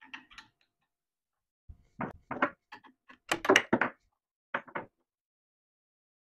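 Wrenches clinking and knocking against the collet nut of a CNC router spindle as the router bit is swapped: a few short clusters of metal clicks and clanks, loudest about three and a half seconds in.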